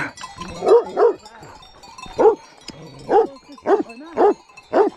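Large white livestock guardian dog barking about seven times in short, loud, irregularly spaced barks. It is warning off a passing runner from the goats it guards behind the fence.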